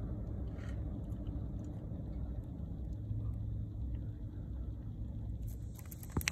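Steady low outdoor rumble. Near the end comes a quick run of sharp slaps and taps as a small landed fish starts flapping on the concrete, one slap loudest.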